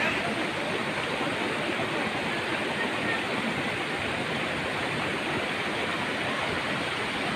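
Waterfall pouring over a rock ledge into a pool: a steady, unbroken rush of falling water.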